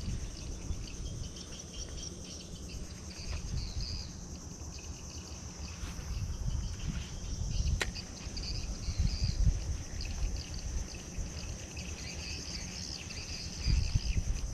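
Steady chorus of insects, crickets or cicadas, buzzing high and pulsing, over an uneven low rumble. A single sharp click comes about two-thirds of the way through.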